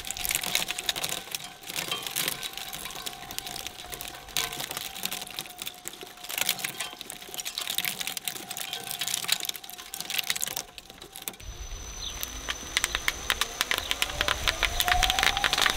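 Twin-shaft shredder's steel cutters cracking and crunching LEGO Technic plastic parts, over a steady whine. About eleven seconds in, the sound changes to a sheet of bubble wrap being drawn into the cutters: a low rumble and a rapid crackle of popping bubbles, growing denser near the end, with a rising whine.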